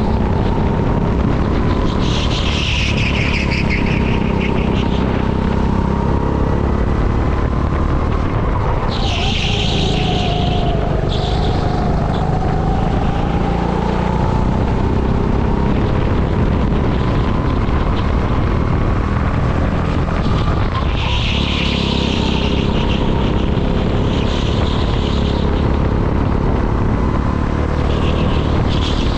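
Go-kart engine running hard on a lap, its pitch dipping and rising, with several short bursts of tyre squeal.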